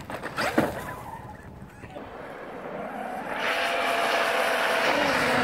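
Traxxas X-Maxx RC monster truck, its brushless electric motor driving it across a lake as it hydroplanes, the tyres throwing spray. It is fairly quiet at first, then from about three seconds in a steady hiss of spray sets in with a faint motor whine under it.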